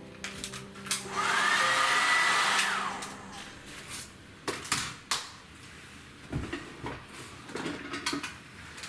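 Electric dryer's blower motor switched on briefly: a loud whoosh of air with a whine that rises, holds steady for about a second and a half, and winds down. Scattered clicks and knocks follow.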